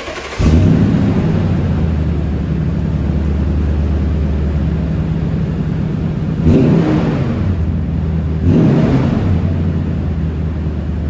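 2012 Toyota Tundra engine through a Rough Country dual cat-back exhaust, idling steadily and revved briefly twice, about six and a half seconds in and again two seconds later.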